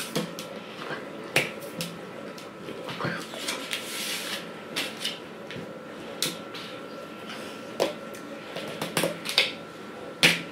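A dozen or so sharp clicks and snaps at uneven intervals, the loudest near the end, over a faint steady high whine.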